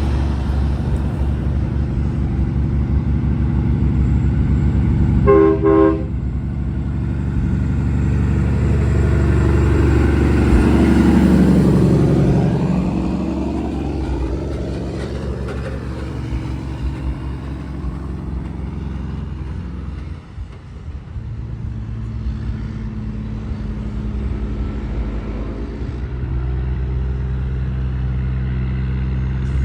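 Road traffic with a vehicle engine idling steadily throughout. A short horn toot sounds about five seconds in, and a vehicle drives past close by, loudest around twelve seconds in.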